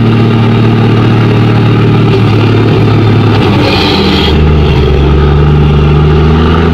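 Large truck engine running steadily, a dubbed-in sound effect. About four seconds in, its note drops lower.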